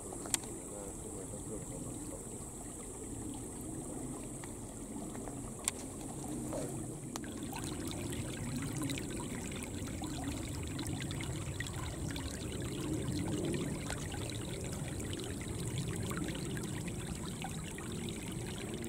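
A small stream trickling and babbling steadily. Two short sharp clicks sound over it, one just after the start and one about six seconds in.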